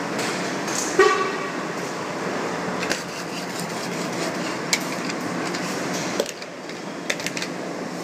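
Heavy truck running steadily as it rolls by, with a short horn toot about a second in and a few sharp knocks later on.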